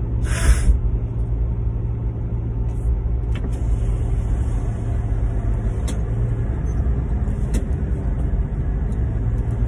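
Steady car cabin rumble of engine and road noise while driving. A brief burst of rustling handling noise about half a second in, and a few faint clicks later.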